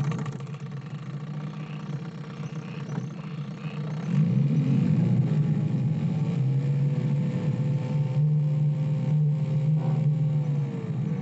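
Motorboat engine running steadily, growing louder about four seconds in and holding there.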